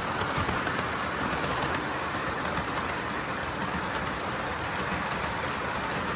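Model Western Maryland M2 Challenger articulated steam locomotive and its train rolling around a model railroad layout: a steady rumble of wheels on track with faint ticking.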